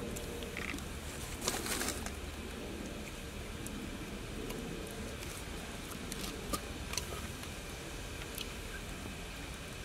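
Food scraped from a small bowl into a clay cooking pot with a stick, giving a few light clicks and a short scraping rustle about a second and a half in, over a steady background hiss.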